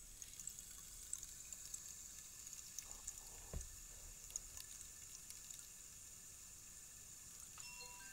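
Rainstick's filling trickling down through the upright tube: a faint, steady hiss of tiny pattering ticks. A single low thump comes about halfway through, and a chime starts ringing near the end.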